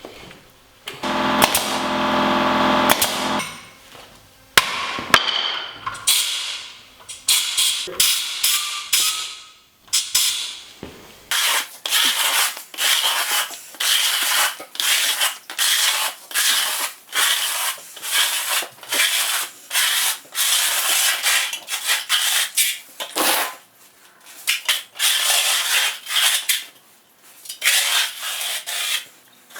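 A hand tool worked against timber in quick, even strokes, about two a second, each with a scraping sound; before them comes a short buzz and a few separate knocks.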